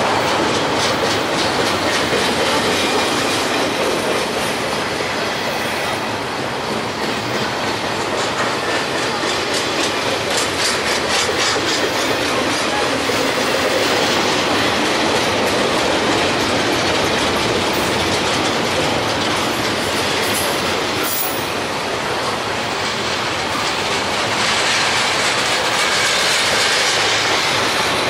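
Long freight train rolling past at close range, its cars clicking in a steady rhythm over the rail joints, with a brief high squeal about two thirds of the way through.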